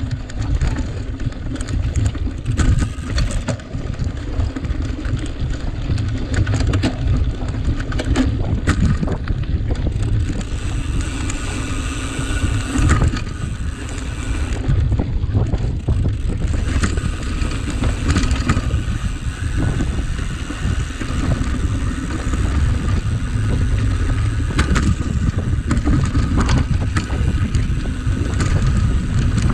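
Cyclocross bike being raced over rough ground: steady wind rumble on the microphone, with scattered rattles and clicks from the bike and tyres.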